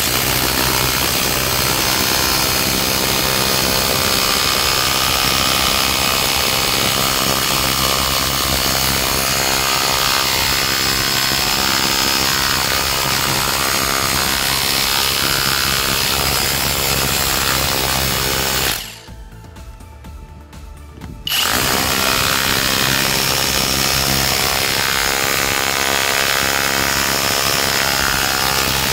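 Cordless rotary hammer in hammer-only chisel mode, its pointed chisel bit hammering into a concrete sidewalk paving block: a loud, steady hammering. It stops for about two seconds roughly two-thirds of the way through, then starts again.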